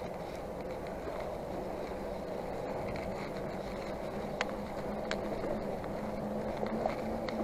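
Mountain bike riding on asphalt: a steady rushing roll of knobby tyres with a low hum that rises a little and grows louder in the second half, and a couple of sharp clicks in the middle.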